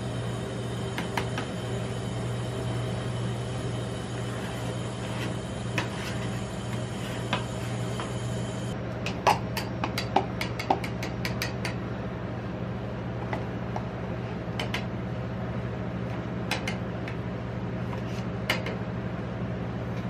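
Steady hum of a rolled-ice-cream cold-plate machine, with scattered sharp clicks and taps of a metal spatula and tongs against the steel plate and a paper cup, busiest from about nine to twelve seconds in.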